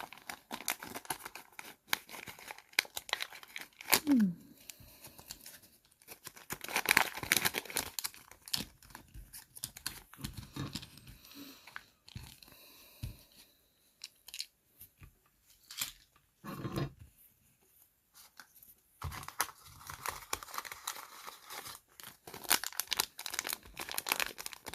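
Plastic packaging being torn open and crinkled by hand in irregular bursts, with a few short pauses, as Mini Brands capsules and their wrappers are opened.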